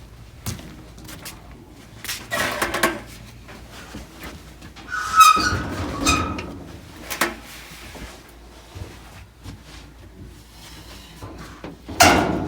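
Handling noises from taking apart and refitting an electric clothes dryer's sheet-metal drum and cabinet: scattered knocks and clicks, a scrape about two seconds in, a louder scrape with a brief squeal about five seconds in, and a loud rushing scrape near the end.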